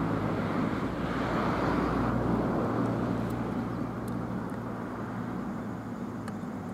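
A motor vehicle's engine rumbling steadily, slowly fading as it moves away.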